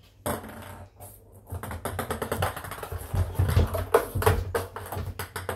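Ping pong ball clattering and bouncing around an empty bathtub as a cat bats it. A quiet start gives way, about a second and a half in, to a fast, uneven run of light clicks, with a few duller thumps of the cat's paws on the tub.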